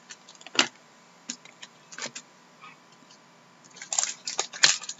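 Hockey trading cards being handled and flicked through by hand: a few light, sharp cardboard clicks and snaps, then a quick run of them with rustling near the end.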